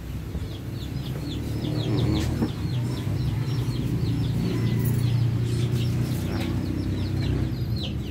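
Young domestic chicks peeping: many short, high, falling peeps, several a second, over a steady low rumble.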